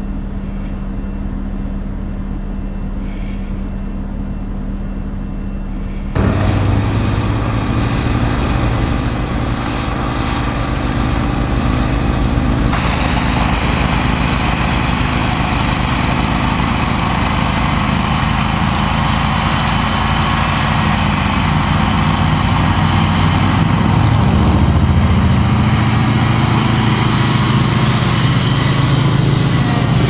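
Riding lawn tractor's small engine running hard, with its front-mounted snowblower churning and throwing snow. This starts abruptly about six seconds in, after a steady low hum.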